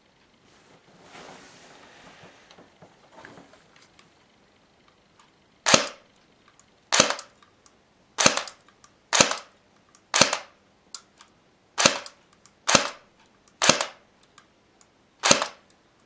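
Double Eagle M89 electric airsoft pistol firing single shots through a home-made chronograph, about ten sharp reports roughly a second apart, beginning about six seconds in. Soft handling rustle comes before the first shot.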